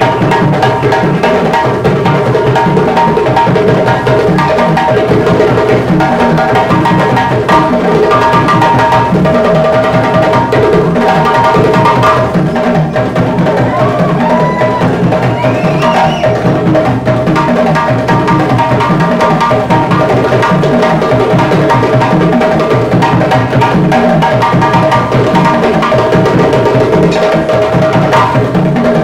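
Live hand-drum ensemble of djembes playing a dense rhythm together without a break.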